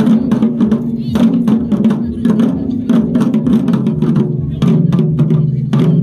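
Korean farmers' dance (nongak) music: fast, dense drumming with many strokes a second over a sustained low melodic layer.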